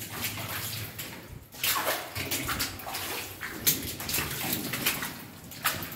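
Water splashing and sloshing in irregular bursts as someone wades on foot through shallow water in a mine tunnel, louder from a little past a second and a half in.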